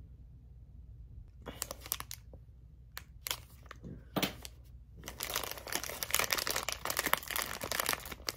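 Crinkling and rustling of a thin plastic packaging pouch being handled and pulled open, in scattered bursts at first and then continuous from about five seconds in.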